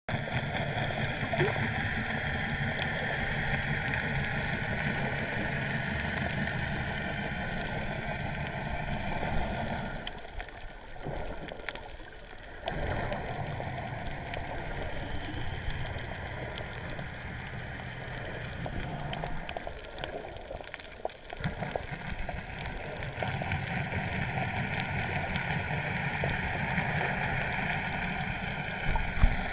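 Muffled underwater sound of a camera in its waterproof housing while snorkelling: a steady rush of water with a low hum, dropping quieter twice for a couple of seconds.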